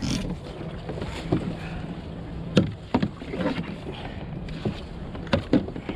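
Scattered knocks and bumps on a kayak over water and wind noise, with the sharpest ones about two and a half seconds in and a pair near the end, as a hooked leopard shark is handled beside the kayak.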